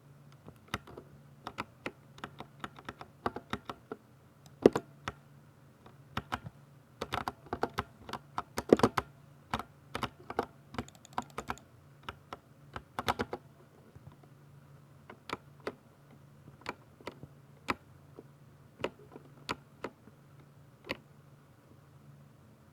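Typing on a Ducky 60% mechanical keyboard with Cherry MX Silver linear switches: irregular keystroke clacks, quick and dense through the first half, then slowing to about one stroke a second.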